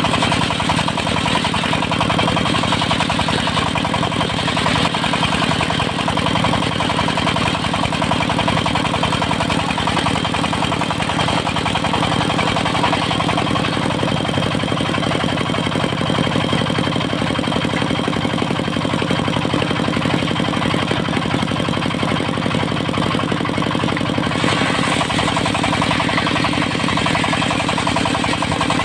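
Diesel engine of a mobile circular-saw rig running steadily with the saw going, cutting teak into boards; the sound changes slightly near the end.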